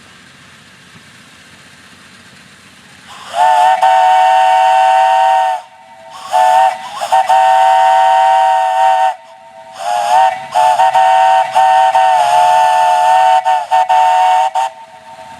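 A 3-inch Lonergan three-chime steam whistle on 30–45 psi steam, blown in a series of long and short blasts that start about three seconds in. Each blast sounds a steady three-note chord.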